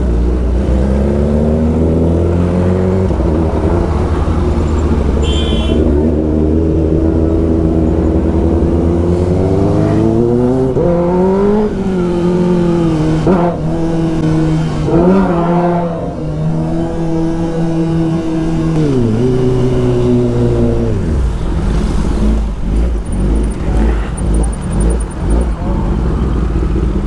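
Kawasaki Ninja ZX-10R's inline-four engine under way. Its pitch climbs and drops sharply several times through the gears, then falls away to a low rumble near the end as the bike slows.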